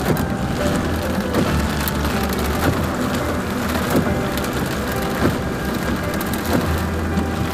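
Heavy rain drumming on a car windshield, with irregular sharp drop hits over a steady low hum of the moving car and its tyres on the wet road.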